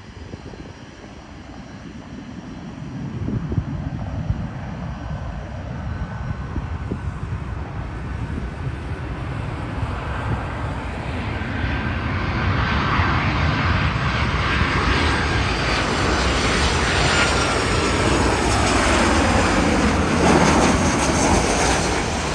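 Ryanair Boeing 737 jet airliner on final approach, its engines growing steadily louder as it comes closer. In the second half a high engine whine sits over the rush and falls in pitch as the jet passes.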